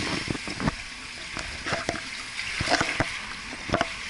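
Swimming-pool water splashing: a steady wash of water with several short, sharp splashes.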